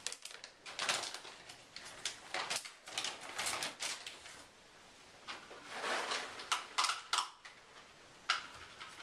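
Rustling and light clattering in short, irregular bursts, from things being handled at a kitchen counter.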